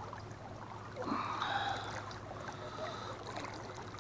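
Water lapping and splashing beside a small boat over a steady low hum, with one brief louder rush of noise about a second in.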